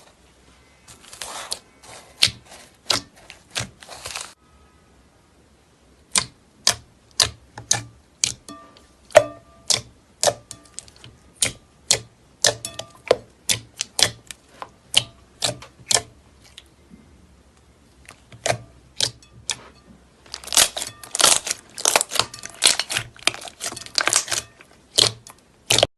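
Slime being squeezed and poked by hand, giving a long run of sharp clicks and pops, about two a second, with denser crackling spells near the start and near the end.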